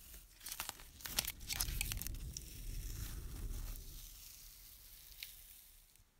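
Blue painter's masking tape being peeled off the fresh paint of a thin tinplate model bus body: a quick run of crackling rips, then softer rustling that fades away, with one small click near the end.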